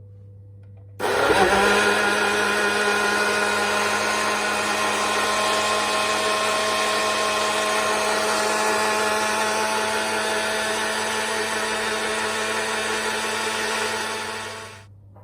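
A small electric motor appliance switched on about a second in, running steadily at one speed, then switched off near the end.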